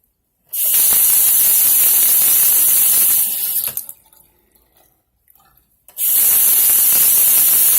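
A newly installed bathroom sink faucet turned on twice, with water running hard into the basin for about three seconds each time. The short bursts are a test run of the new faucet and drain.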